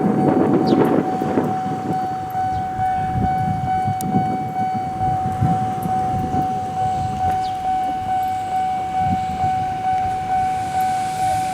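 Electric train passing, its wheels clattering over the rail joints about twice a second under a steady high-pitched whine.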